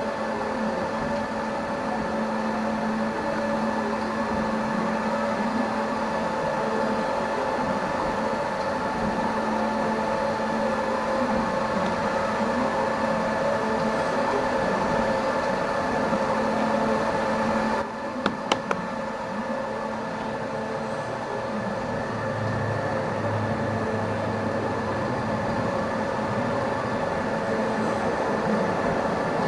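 Plus Mill S5 5-axis dental milling machine running, its spindle and bur cutting a zirconia disc: a steady mechanical whir with several fixed tones. About 18 seconds in the sound dips briefly with a few sharp clicks, then carries on.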